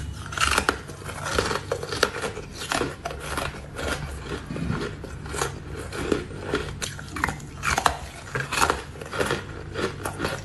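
Hard ice being bitten and chewed: rose-shaped frozen ice cubes cracking between the teeth in a rapid, irregular run of crisp crunches.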